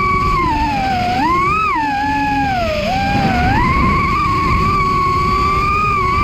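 FPV freestyle quadcopter's brushless motors whining, the pitch dipping and swooping up and down with throttle changes from about half a second in to nearly four seconds, then holding steady. A low rumble runs underneath.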